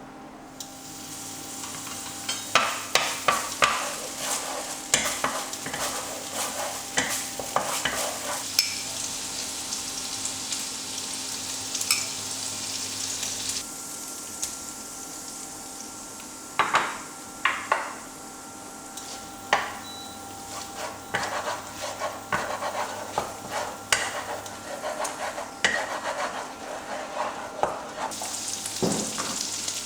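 Stir-frying: food sizzling in hot oil while a spatula stirs it, scraping and knocking against the pan in bursts of quick strokes with pauses between.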